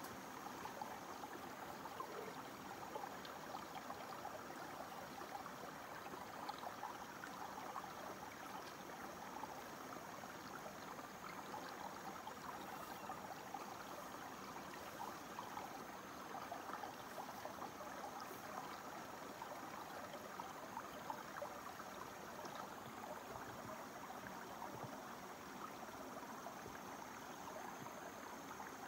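Shallow stream trickling and burbling steadily over rocks. A faint, steady high tone sits behind it and breaks off every few seconds.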